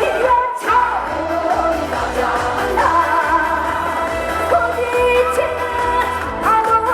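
A woman singing a trot song live over backing music with a steady beat, with a brief break in the music about half a second in.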